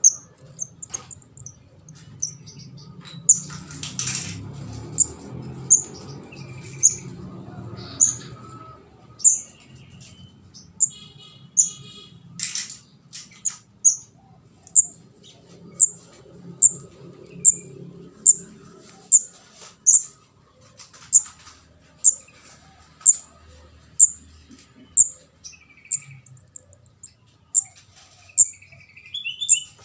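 Short, high chirps of a juvenile kemade (ndas abang) bird, repeating at about one a second, a call used as a lure for trapping birds. A few sharp clicks come in the first half.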